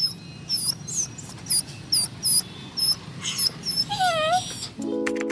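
A small, frightened stray puppy crying: a rapid series of short, very high-pitched squeaky cries, about two a second, then a longer wavering whine about four seconds in.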